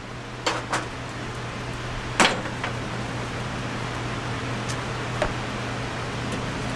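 Lincoln Pro MIG 140 wire-feed welder laying a gas-shielded MIG bead on quarter-inch steel plate at its highest voltage setting: a steady hiss and crackle of the arc, with a few sharp pops of spatter, the loudest about two seconds in. A steady low hum runs under it.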